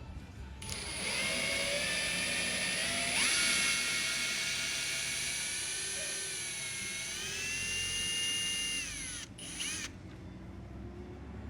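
Electric power tool motor whining at high speed. Its pitch steps up about three seconds in, sags and rises again later as the speed changes, then it spins down and stops.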